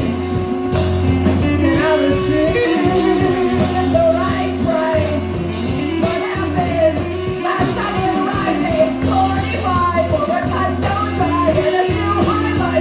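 Live rock band playing a song: a singer's voice over guitar and bass, with a steady beat of drum strokes.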